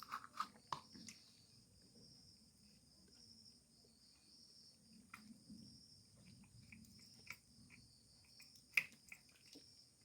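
Faint, steady insect trill, crickets, with scattered small clicks and one sharper click near the end.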